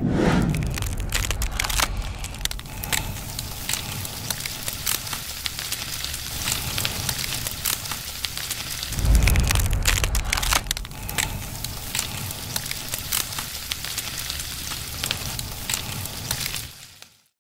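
Dry penne pasta charring in a flame: a steady crackle with many sharp pops over a low flame rumble, which swells about nine seconds in.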